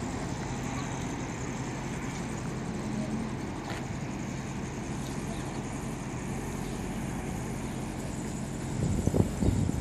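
Audi RS6's twin-turbo V8 idling steadily through an Akrapovič exhaust, with a few louder low thumps near the end.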